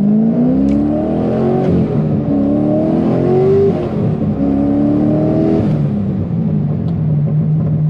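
Rear-mount twin-turbo C6 Corvette V8 making a full-throttle pull, heard from inside the cabin. The revs climb, drop sharply at a gear change about four seconds in, and climb again. Near six seconds the engine falls back to a steady cruise.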